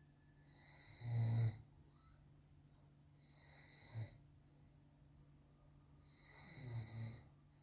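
A man snoring in his sleep: three snores about three seconds apart, the last one in two parts.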